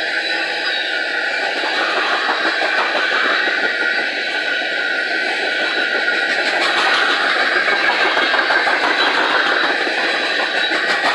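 Freight train of open-top gondola cars rolling past close by: the steady rumble and hiss of steel wheels on rail. Rapid wheel clicks over the rail joints become more distinct about halfway through.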